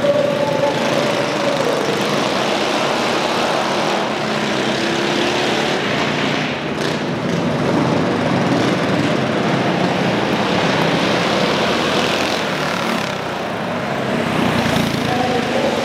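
Several racing mini bikes' small single-cylinder engines running hard together, their pitch rising and falling as riders throttle through the turns. The sound is loudest near the start and again near the end as bikes pass close, and eases briefly about 13 seconds in.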